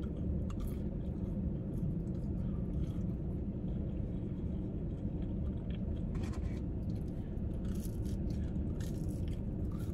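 A person eating fries, with faint chewing and small mouth clicks over a steady low rumble.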